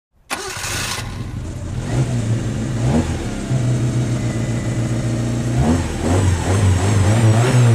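Car engine running with a hissy burst as it comes in, then blipped up in revs several times and revved repeatedly near the end.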